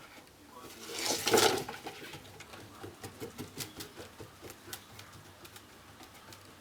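Cats on a cat exercise wheel: a short, loud rush of noise about a second in, then scattered light taps and clicks of paws and claws on the wheel.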